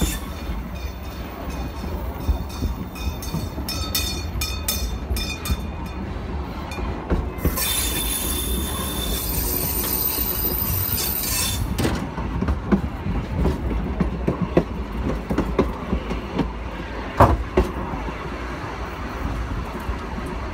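Train carriages rolling slowly over jointed track, with a steady low rumble and irregular knocks and clacks from the wheels. For about four seconds in the middle there is a high squeal as the wheels take a curve. A single sharp clack comes a few seconds before the end.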